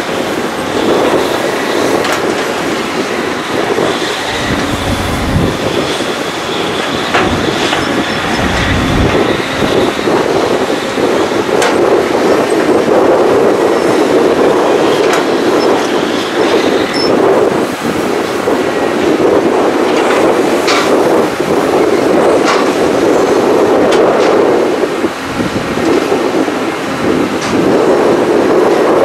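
Diesel engines and hydraulics of Caterpillar crawler excavators running steadily under load while they dig and load soil, with scattered clanks and knocks and a faint high whine in the first half.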